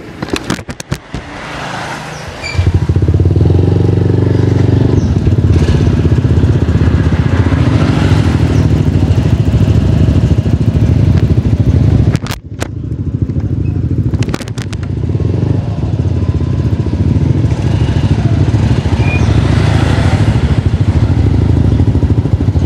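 A motorcycle engine idling steadily close to the microphone. It comes in about two and a half seconds in, with a brief break about halfway.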